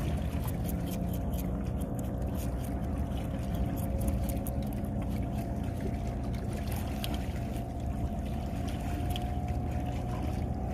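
Boat engine running steadily, its pitch creeping up slightly near the end.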